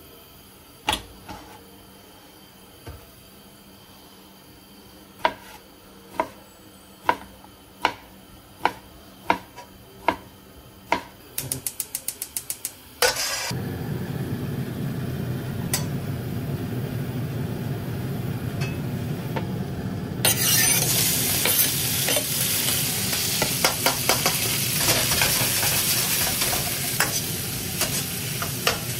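Diced bacon frying in hot lard in a wok: about twenty seconds in, a loud sizzle starts, with the ladle clinking against the wok as the bacon is stirred. Before that come sharp knocks about a second apart, a quick run of rapid clicks, and then a steady hiss as the fat heats.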